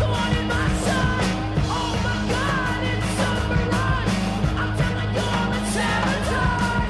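Rock song with shouted vocals over a steady, driving drum beat.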